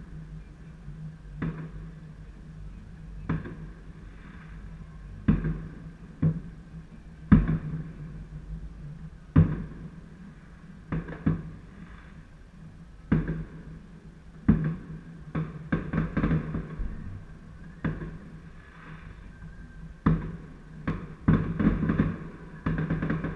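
Fireworks going off: single sharp bangs every second or two, coming faster and overlapping in the last few seconds.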